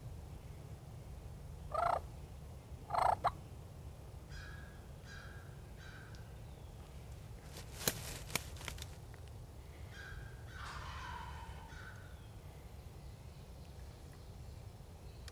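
Wild turkey gobbling: two loud calls about two and three seconds in, then a run of fainter turkey calls. A couple of sharp clicks sound in the middle.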